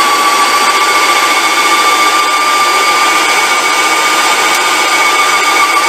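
Graco 495 ST Max II PC Pro airless paint sprayer running on its low flush setting, with a steady whine over a hiss, as it primes the leftover paint out of the hopper back into the tin.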